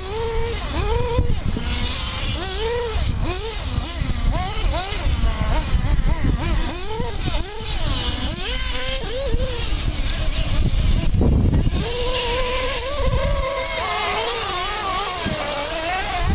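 Glow-fuel (nitro) engines of radio-controlled off-road buggies racing, a high buzzing whine that rises and falls over and over as the throttle opens and closes. For the last few seconds several engines hold a steadier pitch together.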